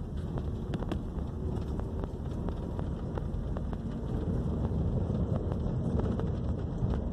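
2012 Honda Civic driving along a street: steady low road and tyre rumble with faint scattered light ticks. The front suspension no longer knocks or creaks, now that the control-arm bushings and the burst engine mount have been replaced.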